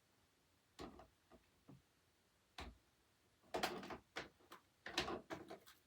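Small objects being handled: a few separate clicks and knocks, then a denser run of clattering and rustling from about three and a half seconds in.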